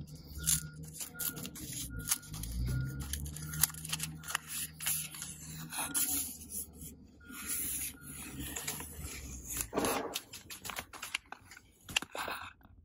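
Paper shipping label being peeled off a pickup truck's window glass: irregular crackling and rustling as the sheet comes away from the glass and is handled.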